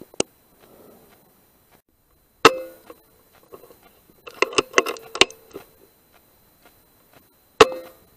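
Two sharp rifle shots, each with a brief metallic ring, about two and a half seconds in and near the end. A run of metallic clicks from the rifle's action comes between them, around the middle.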